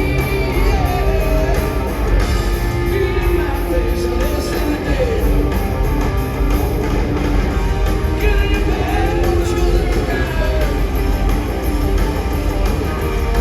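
Live rock band playing loud, with electric guitar and heavy bass, gliding guitar notes and a voice singing.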